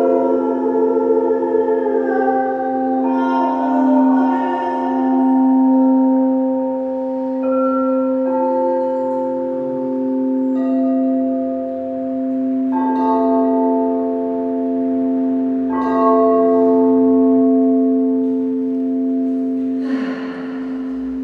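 Crystal singing bowls ringing with long sustain: one steady low tone holds throughout while higher bowls are struck in every few seconds, their tones overlapping and slowly fading. A brief noisy rush comes near the end.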